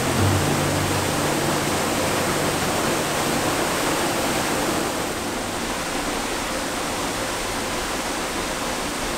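Tall waterfall pouring close by: a steady, unbroken rush of falling water.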